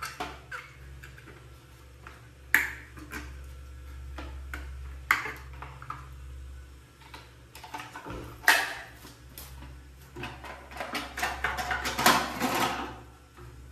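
Hard plastic clicks and knocks as a toilet cistern's plastic flush-valve canister is handled, with its seal ring being fitted. Near the end a quick run of small rattling clicks comes as the assembly is lowered and seated back into the ceramic tank. A steady low hum lies under it all.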